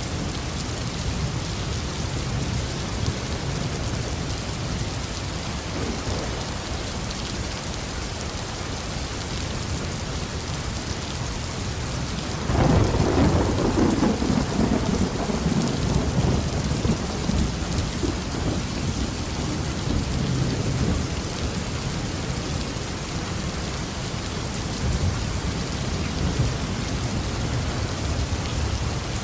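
Steady heavy rain falling, with a clap of thunder about twelve seconds in that rumbles and fades away over several seconds.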